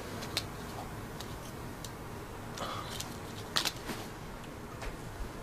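Scattered soft clicks and rustles of small things being handled, over a steady low room hiss. The loudest is a quick double click about three and a half seconds in.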